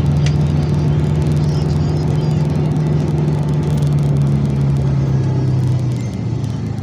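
Motor vehicle engine and road noise while driving: a steady low hum that drops slightly in pitch and level about six seconds in.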